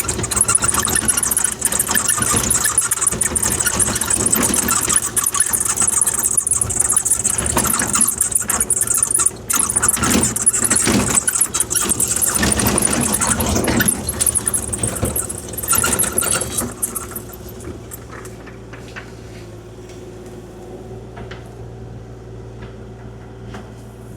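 Kubota KX040-4 mini excavator's diesel engine running steadily while its dozer blade scrapes and pushes gravel, a loud hissing, clicking scrape for about seventeen seconds. The scraping then stops and only the engine is left running, noticeably quieter.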